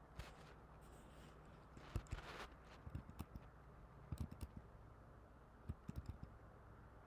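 Faint computer keyboard taps and clicks, scattered in small groups of two or three, over a steady low hum.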